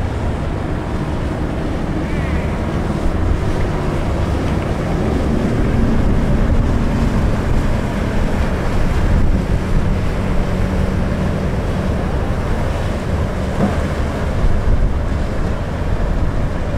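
Wind buffeting the microphone in a steady low rumble, over the rush of water from a cruise ship under way, with a faint steady hum underneath.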